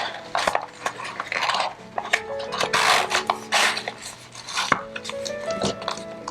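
A paper planner being worked into its cover by hand: rubbing and rustling of paper against the cover, with light taps and clicks and a longer burst of rustling about three seconds in. Soft background music plays underneath.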